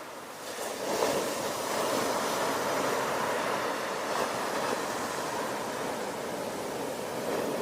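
Ocean surf: a wave builds and breaks about a second in, then foamy water keeps washing steadily.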